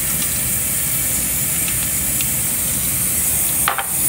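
A steady hiss, broken off briefly by a short click near the end.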